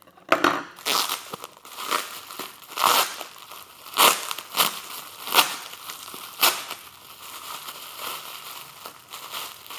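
A parcel being torn open and its wrapping crinkled by hand: a run of sharp rustles and rips through the first six or seven seconds, then softer handling of the packaging.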